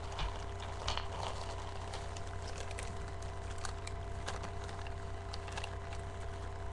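Faint crinkling and rustling of a plastic shopping bag and a paper receipt being handled, a few light crackles at a time, over a steady low electrical hum in the recording.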